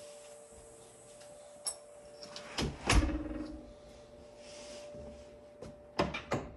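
Interior door being opened: a few clicks and knocks, the loudest about three seconds in and a quick cluster near the end, over a faint steady hum.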